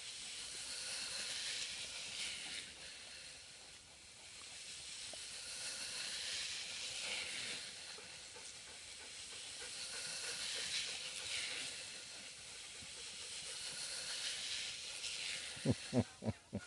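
A drain pipe scraping across the ground as a rat terrier pushes it along with its head inside: a hissing rasp that swells and fades every few seconds. A few quick knocks come near the end.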